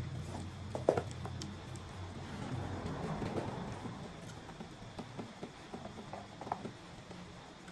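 Scattered light clicks and taps of clear plastic food containers being handled, with a sharper click about a second in, over a low hum that fades away in the first few seconds.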